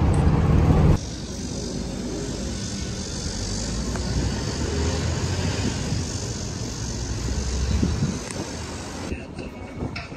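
A bus engine rumbles for about a second inside the cabin, then the sound cuts abruptly to outdoor wind rumbling on the microphone, with a steady high hiss above it.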